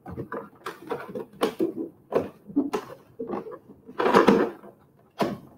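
A foil-covered cardboard box being closed and handled: a string of light knocks, scrapes and rustles, with a longer rustle about four seconds in.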